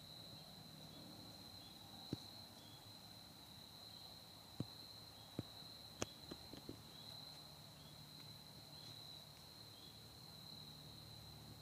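Faint, steady high-pitched insect trill, like crickets in autumn woods, with a few sharp clicks or snaps scattered through the middle.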